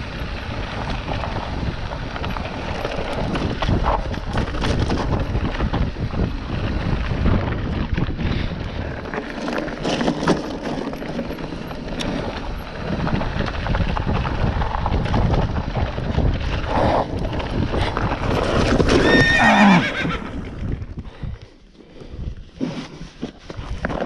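Mountain bike rolling fast down a rocky dirt trail: tyres crunching and rattling over gravel and stones, with wind buffeting the microphone. About three-quarters of the way through comes a loud squeal that slides down in pitch as the rider brakes hard, and then the rolling stops.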